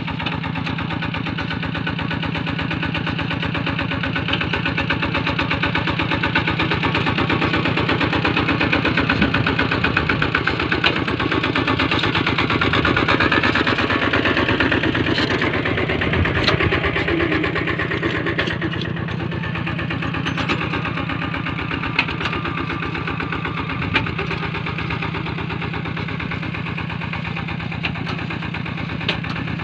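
Single-cylinder diesel engine of a two-wheel walking tractor running steadily under load as it pulls a plow through wet paddy soil, with a few sharp clicks late on.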